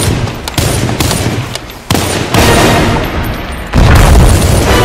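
Sustained automatic rifle fire, a dense stream of shots that breaks off and resumes abruptly a few times, loudest near the end.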